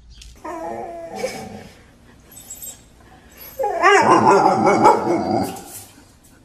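A dog whining in two drawn-out, wavering calls: a shorter one near the start, then a louder, longer one past the middle.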